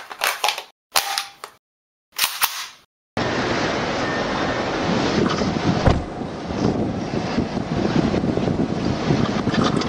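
Three short, sharp bursts of sound separated by dead silence, then, about three seconds in, a steady rushing noise from a police car dashcam's microphone: road and wind noise with a couple of faint clicks.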